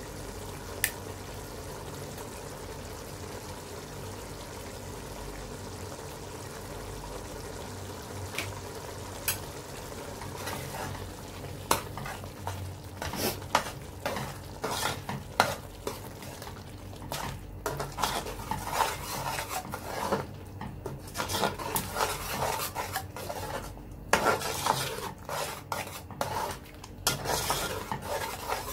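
A metal spoon stirring thick tomato-and-minced-beef sauce in an aluminium stockpot, scraping and knocking against the pot in irregular strokes from about ten seconds in. Before that, a steady sizzle from the pot with a few single clicks.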